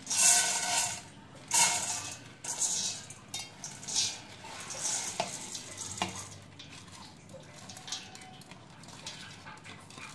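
Dry rice and red lentils poured from a plate into a stainless steel pot, the grains hissing and rattling against the metal in several loud pours over the first few seconds. After that come quieter rustles and ticks as a hand sweeps the last grains off the plate.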